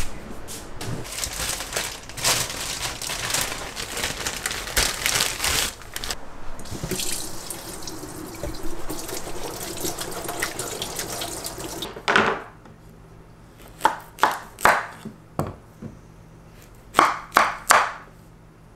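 Kitchen tap running into a stainless steel sink while a carrot is rubbed clean under the stream. About twelve seconds in the water stops, and a knife cuts a Korean zucchini on a wooden board in a series of short, sharp chops, a few spaced out, then four in quick succession near the end.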